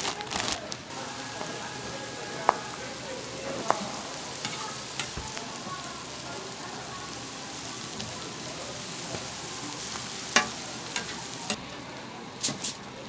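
Food sizzling as it fries, a steady hiss with a few sharp clicks and taps scattered through it, the loudest about two and a half seconds in and again near the end.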